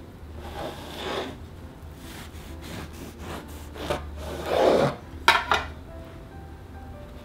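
Knife sawing through a loaf of bread with a crumbly streusel crust on a wooden cutting board: a few rasping strokes, the loudest about four and a half seconds in. Just after it, a couple of sharp knocks as the knife is put down.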